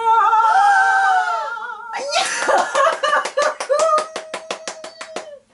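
An excited, wavering high-pitched squeal for about two seconds, then rapid hand clapping at about six or seven claps a second under a held excited vocal note.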